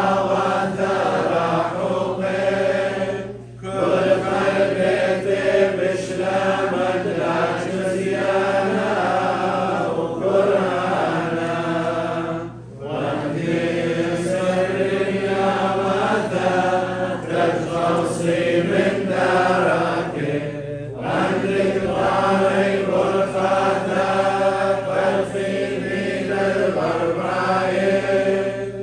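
Liturgical chant: voices singing long, held phrases that step from note to note, pausing briefly for breath about every nine seconds.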